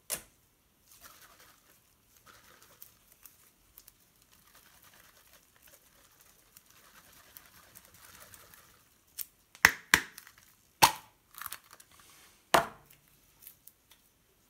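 Handling of an aerosol whipped-cream can: faint rustling and crinkling, then a run of sharp clicks and knocks from about nine to thirteen seconds in, the loudest around ten seconds.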